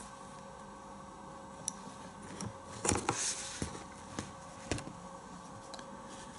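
Several sharp clicks and light knocks as a rifle scope in a Sauer universal quick-release mount is handled and lifted off the rifle. A brief rustle comes just after the loudest click, about three seconds in.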